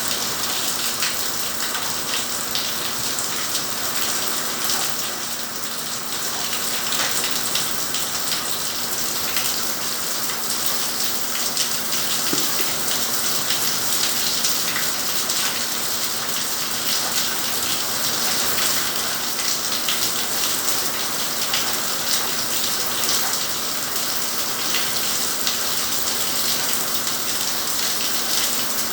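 Steady rain falling, an even hiss dotted with many small, sharp drop impacts on a surface.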